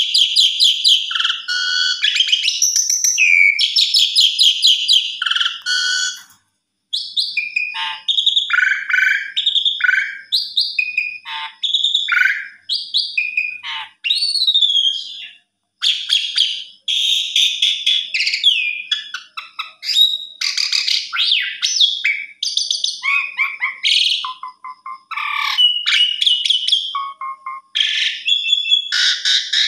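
Pied starling (jalak suren) singing a long, varied song of whistles, rapid trills and harsher chattering notes, broken by brief pauses about six and fifteen seconds in.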